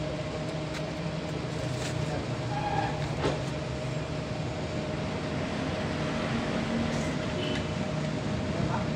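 A steady mechanical drone from a running machine, with scattered sharp metallic clicks as a wrench works on the rocker arms and valve adjusters of a 6WF1 diesel engine's cylinder head.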